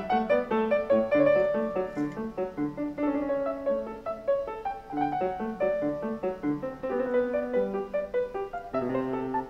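Piano music, a steady flow of notes.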